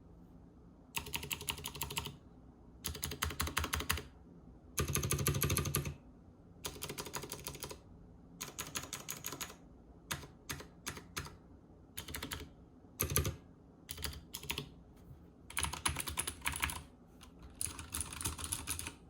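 Typing on a Leopold FC900R PD full-size mechanical keyboard with Cherry MX switches: bursts of rapid keystrokes about a second long with short pauses between, and a few separate single key presses around the middle.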